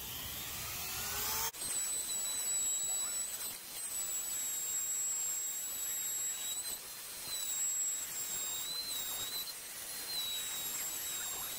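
Router with a flush-trim bit trimming plastic laminate flush to a countertop edge: a steady high-pitched whine whose pitch dips briefly several times as the bit loads in the cut.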